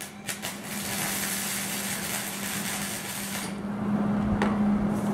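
Electric arc welder crackling and hissing steadily while a weld bead is laid on steel, cutting off about three and a half seconds in. A few sharp clicks follow.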